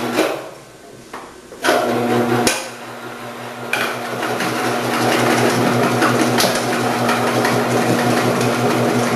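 Omcan HLC 300 vegetable cutter starting up after a couple of knocks, then running with a steady motor hum while cucumbers are fed down its chute onto an 8 mm slicing disc, with clattering from the cutting.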